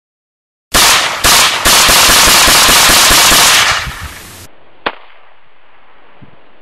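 AR-15 rifle firing a rapid string of shots that run together for about three seconds, loud enough to overload the recording. One more sharp crack follows about a second later.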